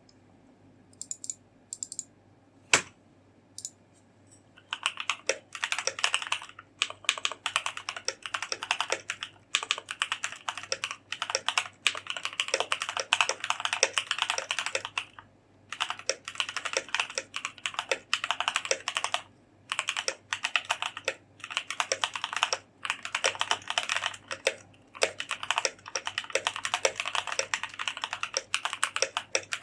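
Typing on a Keychron K8 mechanical keyboard. A few separate keystrokes come first, then fast, continuous typing starts about five seconds in, with a few brief pauses.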